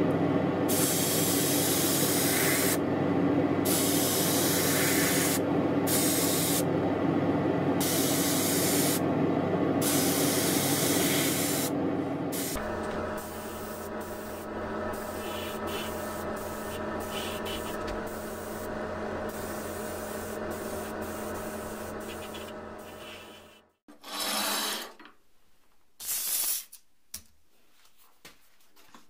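Primer being sprayed onto a metal part: a spray gun hisses in repeated bursts of one to two seconds with short gaps, over a steady motor hum. About halfway through the hiss grows fainter, and about 24 seconds in hiss and hum stop together, followed by two brief rustling sounds.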